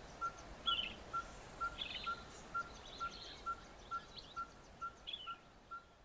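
Juvenile sombre greenbul giving a few short, jumbled, imperfect attempts at the adult's 'willie' call, a young bird practising its song. Behind it runs an even series of short notes of one pitch, about two a second.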